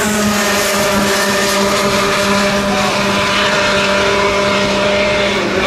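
Two-stroke racing kart engines running at high revs as a pack of karts races, with one engine holding a steady high drone that dips in pitch just before the end.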